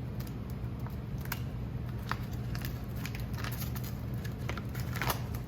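Cardboard and paper packaging rustling and crinkling as parts are handled in a shipping box, with scattered light clicks and a steady low hum underneath.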